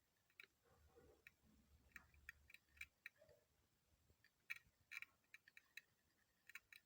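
Faint, irregular clicking from a Honda CR-V distributor's igniter and ignition coil as the igniter is triggered by hand on the bench. The clicking shows the igniter is switching, but no spark is produced, which points to a faulty ignition coil.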